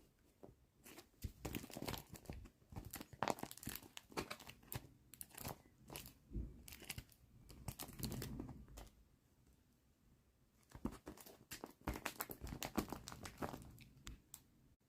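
Paper crinkling and rustling in short, irregular crackles as paper craft toys are handled, with a pause of about two seconds in the middle.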